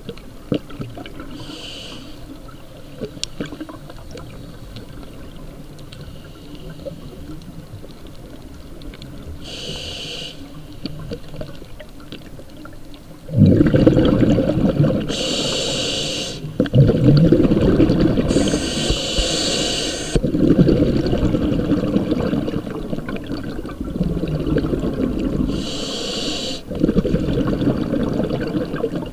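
A scuba diver breathing underwater through a regulator: short hisses of inhalation every several seconds, with rumbling exhaled bubbles in between. The bubble rumble turns much louder about halfway through.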